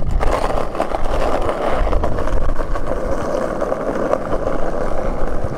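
Skateboard wheels rolling steadily over coarse asphalt, a rough even rumble that starts suddenly and keeps going.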